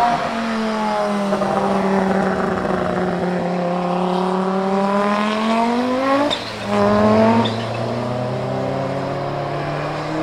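Audi 90 Quattro IMSA GTO's 2.2-litre turbocharged five-cylinder race engine running hard. Its note sinks and then climbs again. About six seconds in the note breaks off briefly, then picks up and climbs steadily under acceleration.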